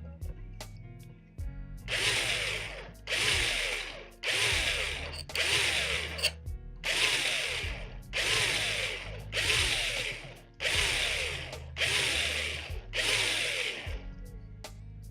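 Small electric drill run in short bursts, about ten of them roughly a second apart, drilling into a die-cast toy car's metal body. Each burst falls slightly in pitch. Faint background music plays underneath.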